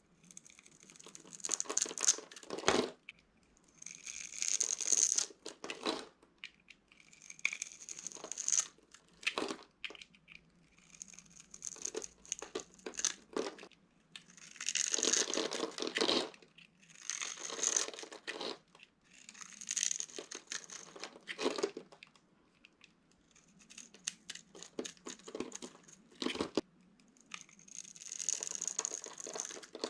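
Dry soap being crushed, crunching and crumbling in repeated bursts about every two seconds with short pauses between.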